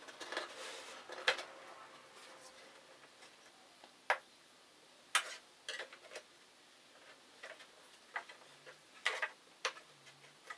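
Light, irregular knocks and clicks of wooden frame boards and a steel square being set down and shifted on plywood, about six sharp taps in all, with a short stretch of rubbing at the start.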